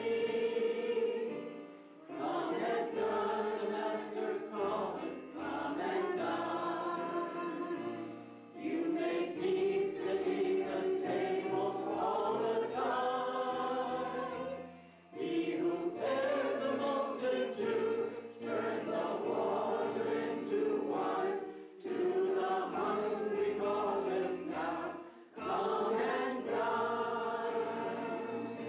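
A choir singing a hymn over a low, steady bass line, in phrases a few seconds long with short breaks between them.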